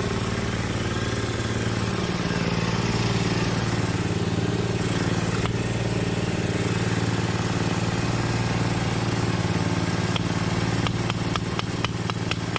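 A small engine runs steadily at idle. Near the end comes a quick run of sharp metallic clicks and clinks.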